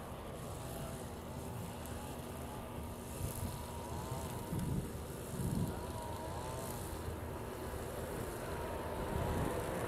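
Steady low rumble of jet aircraft engines, with a faint whine that wavers up and down in pitch.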